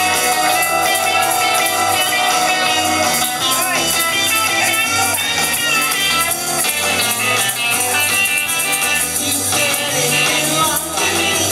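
Karaoke: a woman singing into a microphone over loud amplified backing music with a steady, repeating bass line.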